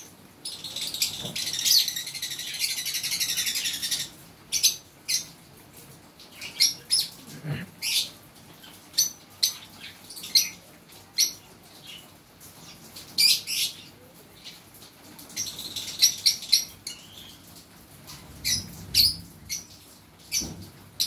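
Fischer's lovebirds chirping: a long, rapid, high twittering run in the first few seconds, then scattered sharp single chirps, with a second shorter run of twittering about two-thirds of the way through.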